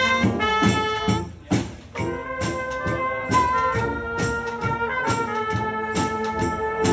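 A live brass street band playing a rock cover. It opens with short punchy notes, then from about two seconds in the horns hold long chords over steady drum and percussion hits.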